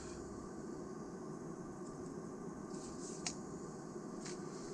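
Quiet workroom hum with two or three brief faint clicks and rustles as small plastic model-kit parts and a paper instruction sheet are handled, about three seconds in and again near the end.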